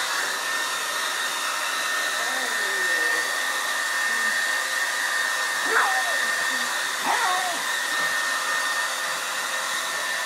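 Hair dryer running steadily, a loud rushing blow with a constant high whine. A few short sounds slide down in pitch over it, about two, six and seven seconds in.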